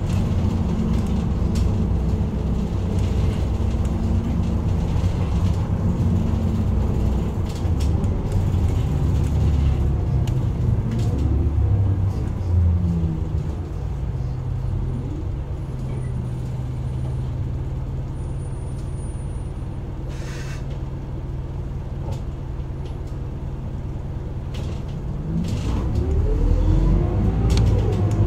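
Isuzu Erga Mio bus's four-cylinder diesel engine heard from inside the bus. It runs under way, winds down about 13 seconds in and holds a steady idle for about ten seconds, with a short hiss near the middle. Near the end it revs up again as the bus pulls away.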